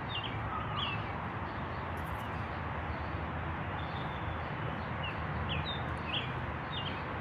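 A bird calling in short, high chirps, a couple near the start and a run of several in the second half, over a steady low background rumble.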